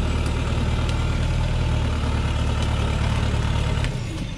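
Engine of a Chiến Thắng light truck loaded with acacia logs, running steadily at low speed as the truck creeps forward. The loud engine hum drops away sharply near the end.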